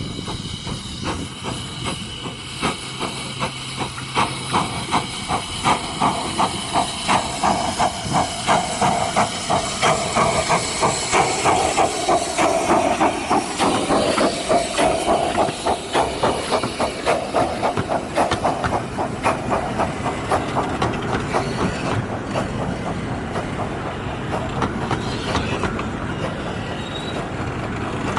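15-inch-gauge 4-6-2 Pacific steam locomotive Hurricane pulling away with a hiss of steam. Its exhaust chuffs come quicker and louder as it gathers speed, then fade over the last several seconds as it draws away.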